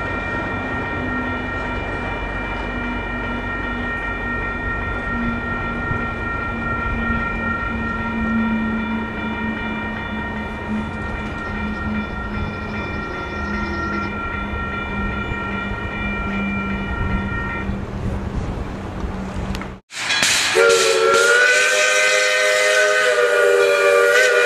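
Union Pacific freight train rumbling at a grade crossing, with a steady ringing from the crossing signal bell that stops about 18 seconds in. After a sudden cut near the end, a louder multi-note train whistle sounds, its chord bending slightly in pitch.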